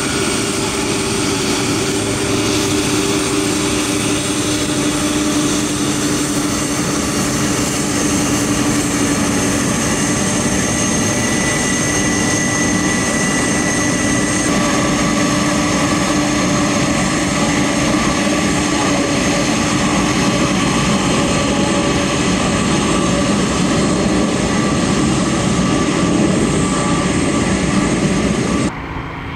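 Aircraft engines running loud and steady at high power, a dense roar with several held whining tones, one sliding slightly lower in pitch over the first ten seconds. It cuts off suddenly near the end.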